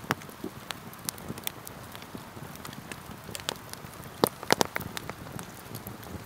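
Freshly lit log campfire crackling, with irregular sharp pops and snaps over a soft hiss; a cluster of louder snaps comes about four and a half seconds in.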